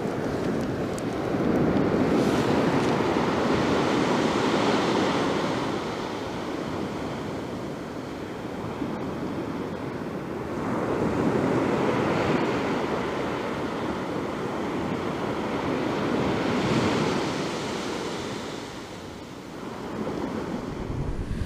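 Sea surf breaking and washing up the beach, swelling loud twice about nine seconds apart, with a low rumble coming in near the end.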